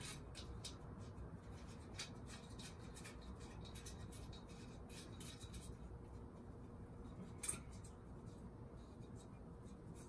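Faint scattered clicks and scrapes of hands working small parts inside a metal headlight bucket, with one sharper click about seven and a half seconds in, over a faint steady hum.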